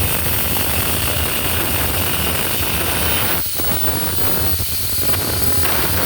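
Angle grinder cutting into the steel pin of a shovel: a steady grinding noise, easing briefly a little past halfway before picking up again.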